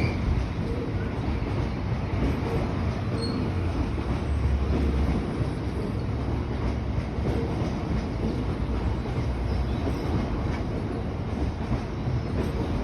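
Freight train rolling by: a steady rumble of wagons on the rails, with a few faint wheel squeaks.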